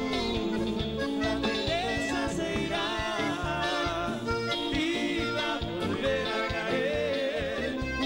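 Live band playing upbeat Latin dance music with a steady beat, accordion and percussion, and a male singer on a microphone.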